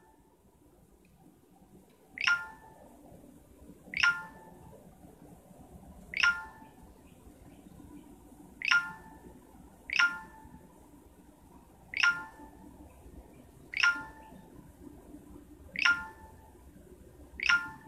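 Short electronic notification chimes from a smartphone, nine of them, one about every two seconds, each a quick falling ping, over faint room hiss.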